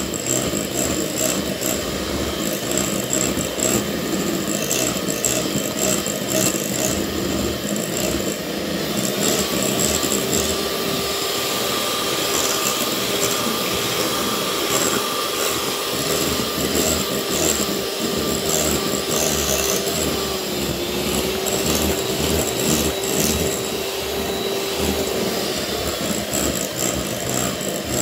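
Electric hand mixer running at full speed, its twin beaters whipping egg whites with sugar into meringue. The motor runs steadily, with a steady whine that comes in about a third of the way through.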